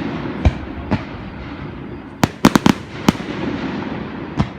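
Fireworks display: a run of sharp bangs, several bunched in a quick cluster about two seconds in, over a steady rushing hiss.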